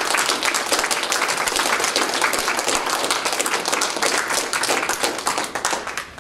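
A small audience applauding with dense clapping that thins out and stops near the end.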